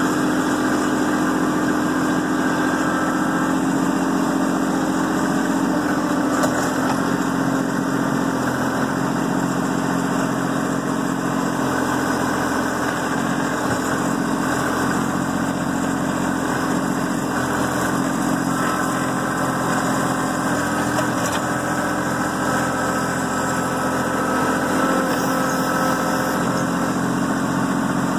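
Kubota B2650 compact tractor's three-cylinder diesel engine running steadily, heard from the operator's seat while the front loader carries log rounds.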